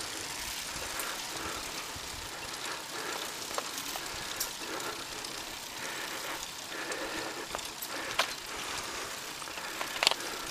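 Steady wind and road noise from riding a road bicycle uphill, with a few sharp clicks, the loudest near the end.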